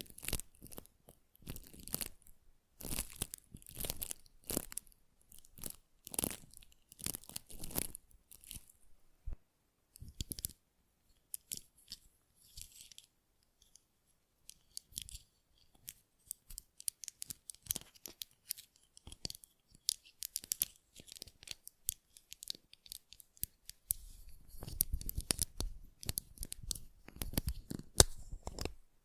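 Close-miked ASMR tactile sounds: crisp crackling and tearing-like scratches in irregular clusters. They thin out around the middle and grow dense again near the end.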